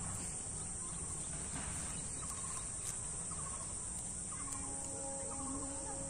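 Steady high-pitched drone of an insect chorus in a grassy field, with short bird chirps repeating every half second or so. From about four and a half seconds in, a steady low hum with overtones joins from an unseen source.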